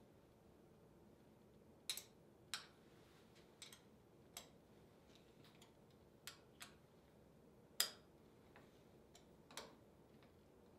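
Scattered sharp metallic clicks and taps, about ten at uneven spacing, the loudest about eight seconds in. They come from an Allen key working the screw under an armrest and from the armrest's mounting being moved by hand to set its angle.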